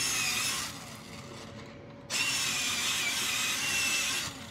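Electric pencil sharpener running with a high whine as a pencil is ground to a point, in two runs: it stops under a second in, starts again about two seconds in and stops near the end.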